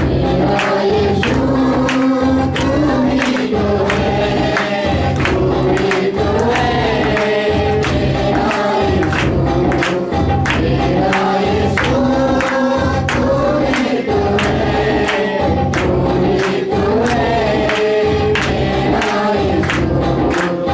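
Several voices sing a Christian worship song in unison over instrumental backing with bass and a steady percussive beat.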